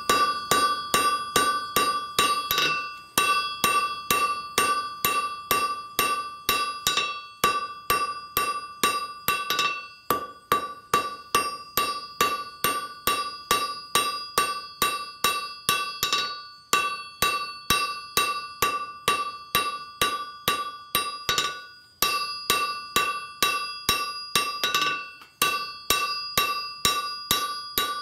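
Hand hammer striking red-hot file steel on an anvil at about three blows a second, the anvil ringing with a clear metallic tone after each blow, with a few short pauses between runs of blows. The smith is drawing out the steel of an old file into a flint-and-steel striker.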